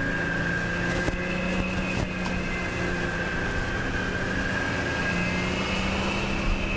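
Military vehicle engines running, a low drone under a steady high-pitched whine, with a couple of faint sharp cracks about one and two seconds in.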